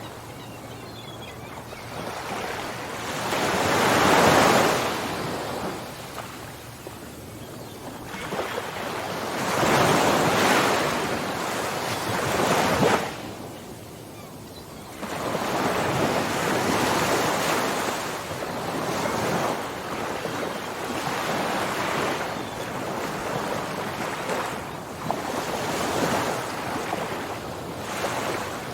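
Ocean surf: waves breaking and washing up, each rush swelling and falling away every few seconds. After a short lull about halfway through, the wash becomes fuller and more continuous.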